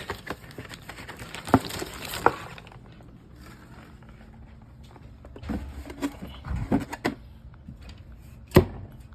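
Scattered knocks and clunks of drink cans being set into a portable 12-volt fridge, with a cluster of them in the middle and one sharp knock near the end.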